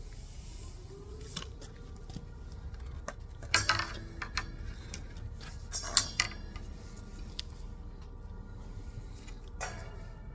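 Sharp clinks and rattles of hard objects being handled, in two short clusters about three and a half and six seconds in, with a few lighter ticks between.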